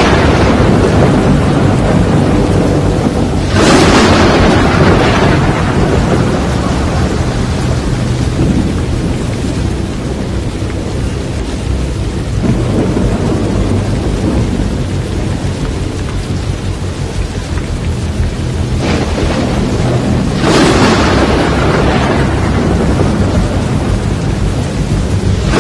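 Tornado wind noise: a continuous heavy rumble with a rushing hiss. It swells loudly about four seconds in, again about two-thirds of the way through, and at the end.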